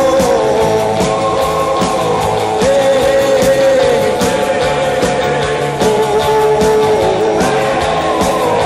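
Rock and roll music: drums keep the beat under a sustained, wavering lead melody line.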